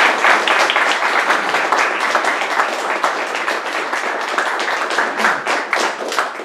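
Audience applauding, a dense patter of clapping that begins to die away near the end.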